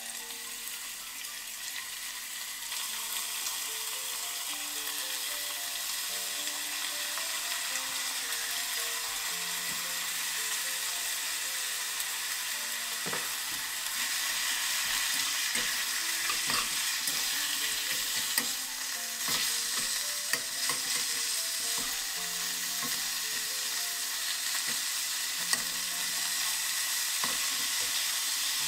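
Thin slices of pork sizzling in oil in a small saucepan, growing louder over the first few seconds as the meat goes in. The slices are stirred and spread with chopsticks, which tap against the pan now and then.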